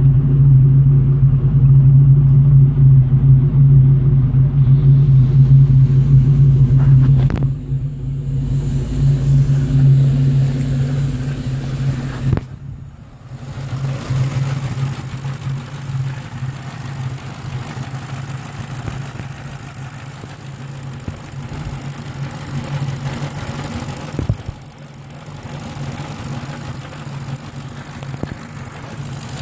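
Ford 4.6 V8 with a Victor Jr intake idling steadily, first at the tailpipe as a loud, even exhaust drone. About 12 seconds in the sound turns quieter and busier from the engine bay, the engine's sewing-machine sound. It is holding a high idle that a new idle air control valve has not cured.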